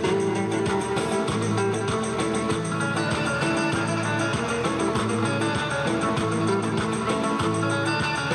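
Instrumental music led by a strummed guitar, with a steady beat.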